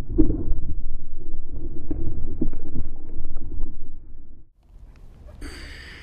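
Muffled low rumble of water rushing past a board-mounted GoPro Hero2 in its sealed waterproof housing as the wakeboard planes over the lake, with a few knocks. The rumble drops away sharply about four and a half seconds in.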